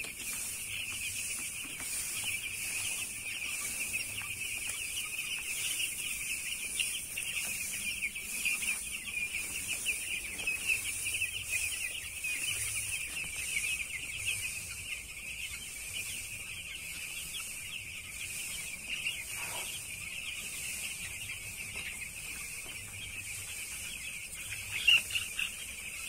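A large flock of eight-day-old broiler chicks peeping steadily, a dense mass of overlapping high chirps.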